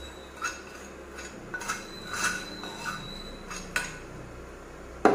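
A metal spoon scraping and tapping masala out of a frying pan into a steel bowl: a series of light clinks and scrapes, then one much louder metal knock near the end.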